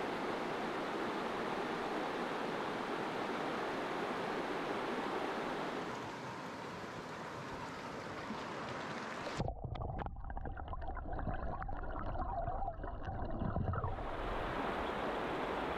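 Shallow mountain river rushing over rocks, a steady wash of moving water. About nine seconds in, the sound turns muffled and bubbly, with scattered clicks and knocks, as heard from under the surface. After about four and a half seconds the open-air rush returns.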